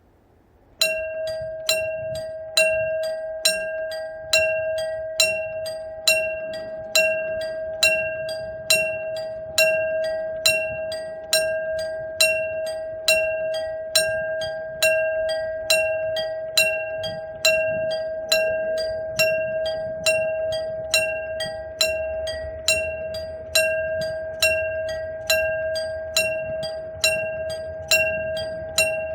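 Electrically operated mechanical railroad crossing bell ringing: a real struck gong rather than a recorded chime from a speaker. It starts about a second in and strikes about once a second on one steady tone, each strike ringing on into the next.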